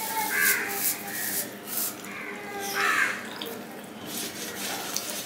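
Crows cawing several times, short harsh calls with the loudest about three seconds in. Under them, short sharp clicks and smacks of fingers working rice on a steel plate and of chewing.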